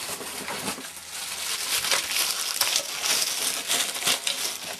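Packaging rustling and crinkling, with dense small scrapes and clicks, as the heater's parts are pulled out of their cardboard box.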